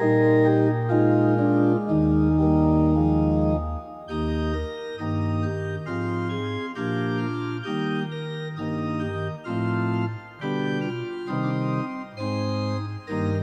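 Organ music playing chords: long held chords with a deep bass note at first, then, from about four seconds in, a run of shorter chords separated by brief gaps.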